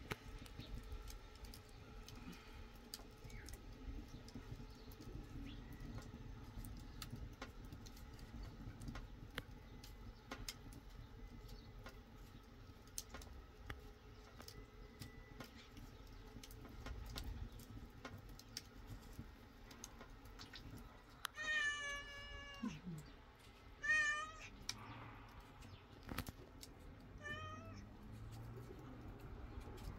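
A cat meowing a few times, short pitched calls starting about two-thirds of the way in, one falling away at its end, over faint scattered clicks.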